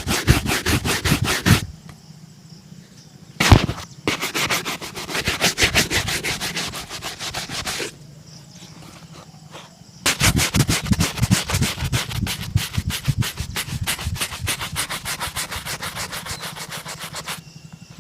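A shoe being brushed or buffed in quick back-and-forth strokes, in three bouts with short pauses between them. A single sharp knock comes in the first pause.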